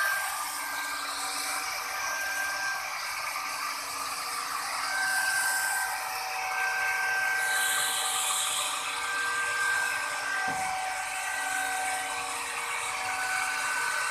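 Handheld electric plunge router running at high speed, its bit cutting decorative grooves into a wooden bed panel. The motor gives a steady high whine over the hiss of wood being cut.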